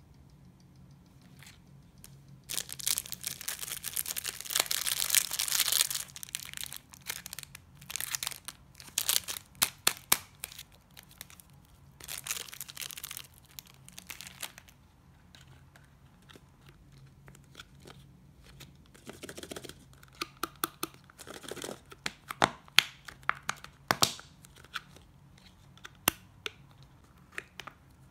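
Crinkling and tearing of packaging as the seal strip is peeled from a plastic surprise egg, with scattered sharp plastic clicks. The longest stretch of crinkling comes a few seconds in and lasts about three seconds; shorter bursts and quick clicks follow.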